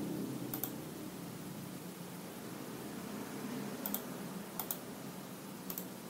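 Scattered short, sharp clicks at a computer, about six in all, some in quick pairs, over a faint steady hum in the room.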